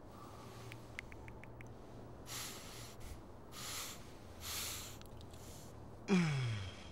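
A man sniffing in deeply three times, then letting out a loud voiced sigh that falls in pitch near the end. A quick run of small clicks comes about a second in.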